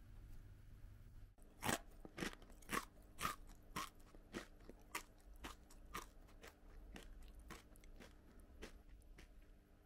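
Dry, uncooked Nissin Zero-Second Chicken Ramen noodles being chewed. Crunches come about two a second, starting about a second and a half in, and grow fainter toward the end.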